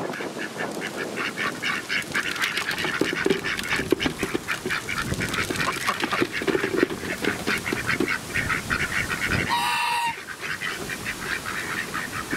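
A flock of ducks and geese calling together: a dense, rapid chatter of quacks and calls throughout, with one longer call a little before ten seconds in.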